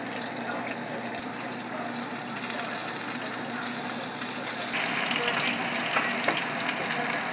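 Pieces of fish sizzling as they fry in oil in a frying pan: a steady hiss that grows louder about five seconds in, with a few light taps.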